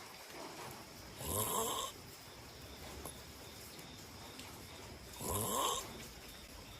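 A person snoring: two loud snores, one about a second in and the next about four seconds later.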